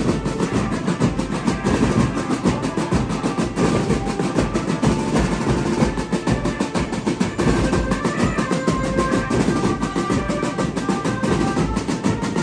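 A marching band's drum line playing together: steel-shell marching snare drums beaten with sticks over bass drums, in a dense, driving rhythm with rolls.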